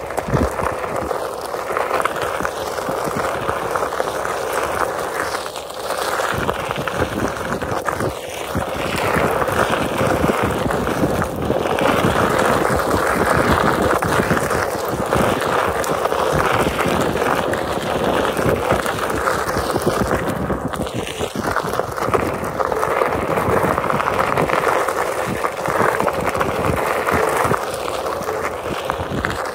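Onewheel Pint X electric board's tyre rolling over a gravel and dirt trail: a steady crunching rumble that swells and eases with speed.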